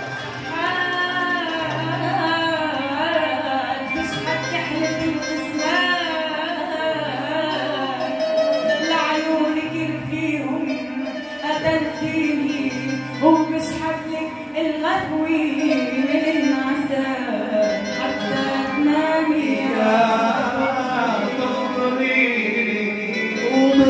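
A woman singing an ornamented Arabic zajal verse into a microphone, her voice sliding and bending through long melismatic phrases. Under her voice runs a steady instrumental accompaniment.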